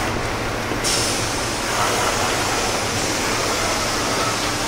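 Steady factory-floor noise, an even machinery and ventilation rumble with hiss. A brighter hiss joins about a second in.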